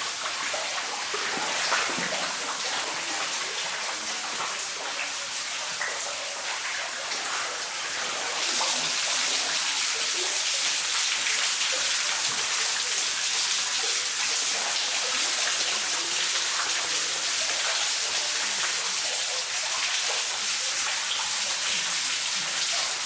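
Small waterfall spilling over boulders: a steady rush of falling water that turns louder and brighter about eight seconds in.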